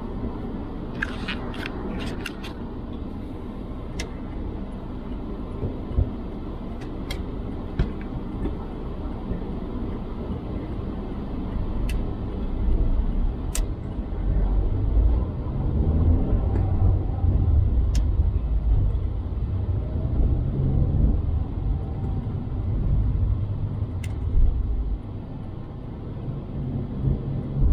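Car engine and tyre rumble heard from inside the cabin as the car pulls away and drives, growing louder about twelve seconds in. A few sharp clicks stand out.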